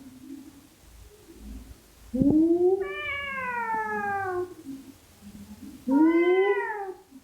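Domestic cat giving two long, drawn-out meows, each rising and then falling in pitch. The first comes about two seconds in and the second near the end. The voice has an odd, yowling quality.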